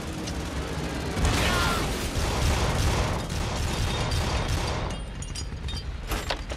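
Battle sound effects from a naval war film: a continuous low rumble of explosions and fire, loudest a second or two in, with scattered sharp cracks and pops near the end.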